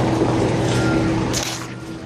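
Steady drone of an airliner cabin in flight: engine and air noise with a constant low hum. A short hiss comes about one and a half seconds in, then the drone briefly drops in level.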